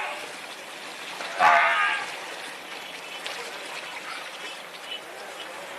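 A farm animal bleating once, a short wavering call about a second and a half in, over a steady background hiss.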